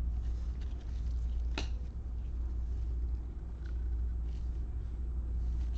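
Steady low hum of room background, with one sharp light click about one and a half seconds in and a few faint small ticks, typical of cards being handled.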